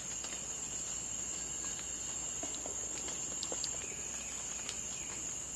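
Steady, high-pitched drone of rainforest insects, one unbroken shrill tone with a fainter lower one beneath, and a few faint clicks.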